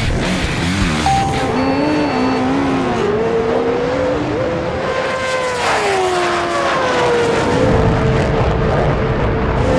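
Engines of vehicles in a runway drag race, revving hard, their pitch rising and falling several times, with one falling glide about six seconds in.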